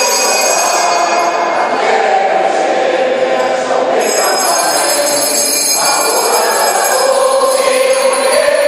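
Mixed choir of men and women singing, holding full chords that shift every couple of seconds.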